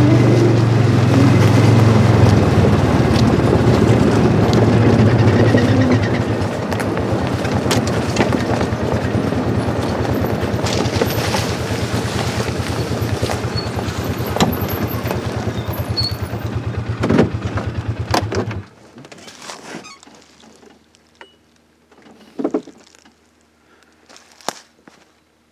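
Vehicle engine running steadily, then shut off abruptly near the end, followed by a few faint knocks and rustles.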